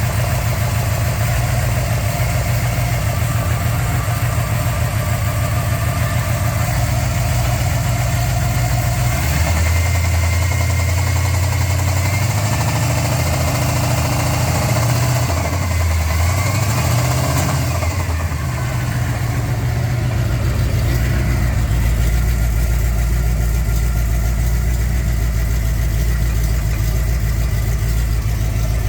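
Camaro Z28's 400 V8 engine running with a rod knock. It idles steadily, is revved up and down a few times from about nine seconds in, then settles back to a steady idle.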